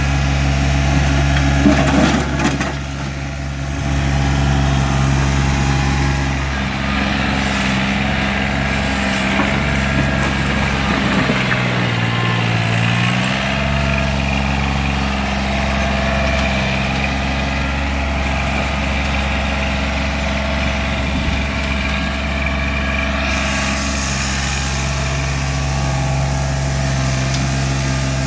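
John Deere 855 compact tractor's small diesel engine running steadily. A few knocks come near the start, and about twelve seconds in the engine note drops briefly, then comes back up.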